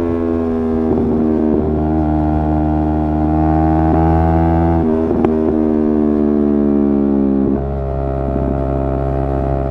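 Yamaha R3's 321 cc parallel-twin engine running under way at fairly steady revs. Its note changes in steps three times, at about one and a half, five and seven and a half seconds in.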